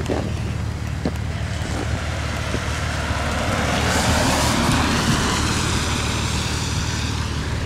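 A car in motion: a steady low engine and road hum, with a rush of tyre and wind noise that swells about four seconds in and then eases.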